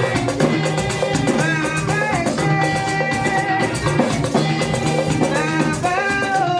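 Upbeat music with a drum kit keeping a steady beat under held melody notes that slide between pitches.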